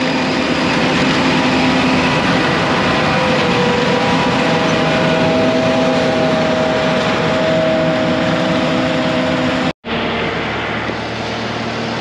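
John Deere combine running while harvesting soybeans: a dense, steady machine noise with a few steady tones held through it. About ten seconds in it cuts off abruptly and gives way to a quieter steady hum.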